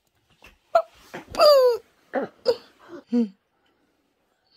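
A toddler babbling and squealing in short bursts, the loudest a long high squeal about a second and a half in that slides down in pitch.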